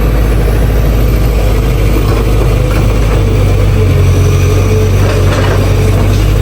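Excavator's diesel engine running steadily, with a low hum that grows louder for about two seconds near the middle.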